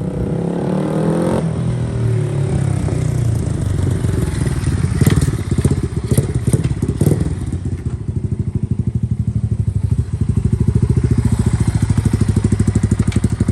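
Yamaha 200cc motorcycle engine running, with a few revs at first and some clattering knocks midway, then settling into a steady, evenly pulsing idle for the second half.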